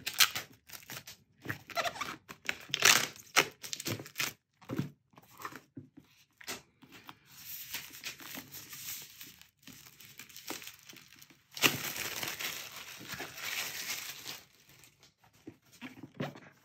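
Clear plastic shrink wrap on an Apple product box being peeled by its pull-tab and stripped off by hand, making crackling, crinkling and tearing sounds. About twelve seconds in there is a longer continuous rip lasting about three seconds.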